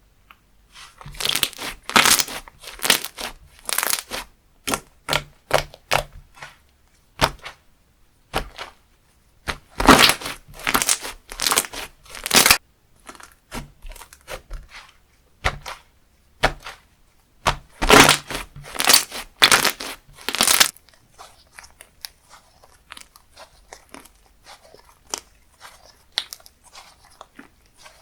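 Slime being squished and stretched by hand, giving dense crackling, crunching pops. These come in three loud bursts, with sparser soft crackles between them and after the last burst.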